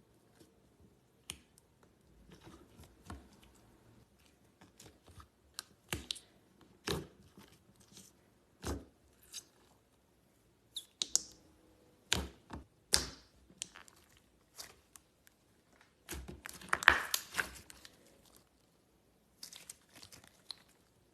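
Slime being pressed and stretched by hand, giving scattered sharp clicks and pops with short quiet gaps, and a denser stretch of crackling about three quarters of the way through.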